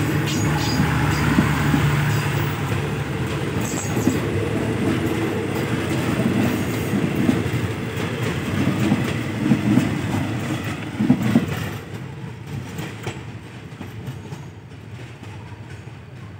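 A passenger train's carriages rolling past, wheels clattering over the rail joints with a steady low rumble. The sound fades away from about 12 seconds in.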